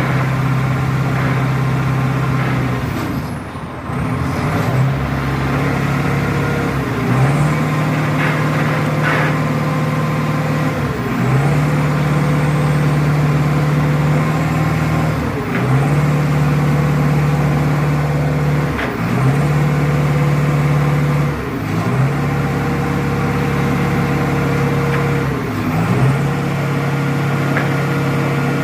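Diesel engine of a heavy construction machine running hard at steady high revs, dipping briefly and picking up again every three to four seconds.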